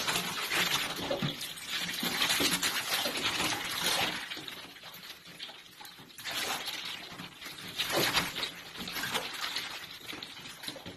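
Bathtub water splashing and sloshing as an otter swims among floating plastic balls, in uneven surges, busiest in the first four seconds and again from about six to eight seconds.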